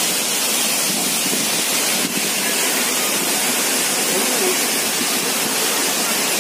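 Steady rush of a tall waterfall plunging into a rock pool, with a short break about two seconds in.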